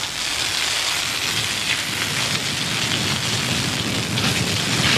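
Fire hose spraying a strong jet of water onto a fire: a steady rushing hiss of water.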